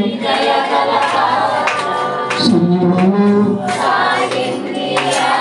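A man singing a slow devotional song into a microphone, amplified through a sound system, with long held notes that glide in pitch.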